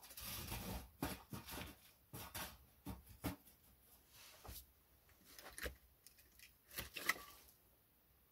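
Split firewood being handled and pushed into the firebox of a brick stove: a string of wooden knocks, scrapes and rustles, the sharpest about seven seconds in.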